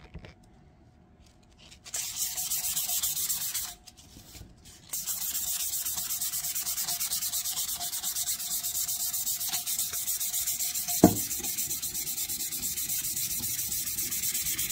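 Sandpaper rubbed by hand in quick back-and-forth strokes over a bare stainless steel tumbler, scuffing the metal before it is coated. The rubbing starts about two seconds in, stops briefly, then runs on steadily, with one sharp tap about eleven seconds in.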